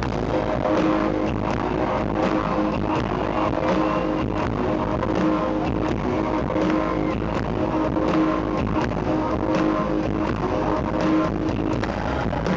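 Live rock band playing at concert volume: a distorted electric guitar riff over a steady drum beat, in a muddy, poor-quality recording made from the audience.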